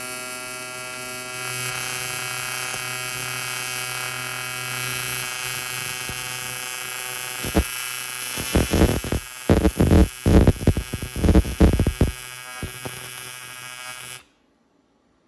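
AC TIG welding arc buzzing steadily on aluminum while the ladder leg is being tacked and welded. About halfway through, a run of loud, irregular cracks and pops breaks in. The arc cuts off abruptly near the end.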